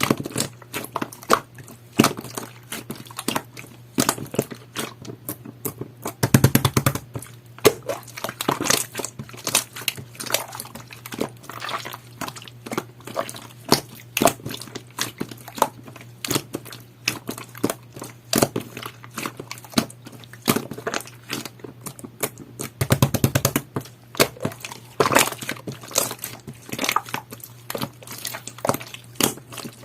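Clear, jelly-textured slime being squished and pressed by hand, making a dense run of irregular sticky clicks and small pops, louder in two spells about six and twenty-three seconds in.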